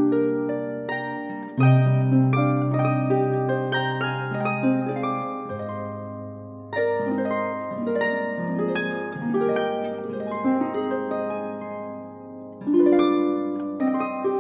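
Background music on harp: a flowing run of quick plucked notes ringing over low held bass notes.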